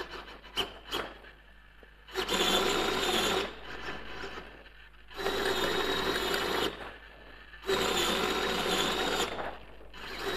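Hacker Ditex sail-winch servo turning its winch drum to sheet the sails in and out: a geared whine in four runs of about a second and a half each, with short pauses between. A few light clicks come in the first second.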